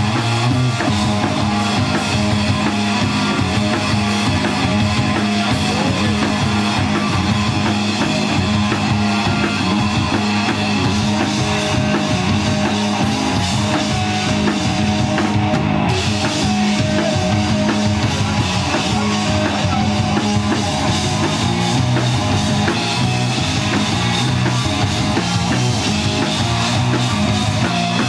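Live instrumental rock played by a power trio: electric guitar, electric bass and drum kit, loud and steady with no singing.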